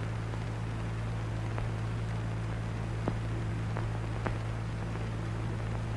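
Steady low hum and hiss from an old film soundtrack, with a few faint clicks scattered through it.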